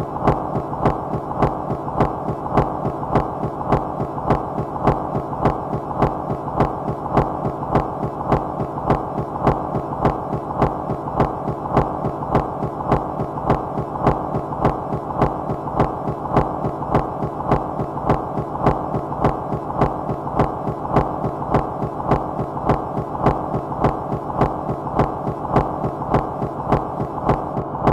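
Minimal rhythmic noise music: a dense, steady hum of electronic noise with an even pulsing beat, about two pulses a second.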